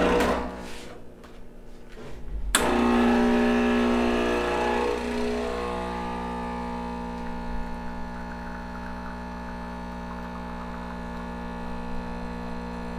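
Espresso machine pump running with a steady hum while a double shot extracts. It starts suddenly about two and a half seconds in, loudest at first, then settles.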